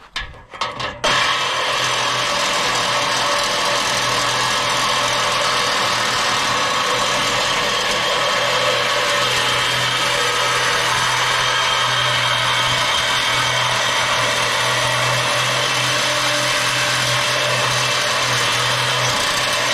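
A handheld power tool cutting through a scrap metal ladder: a few knocks, then about a second in the tool starts and runs in one loud, steady cut.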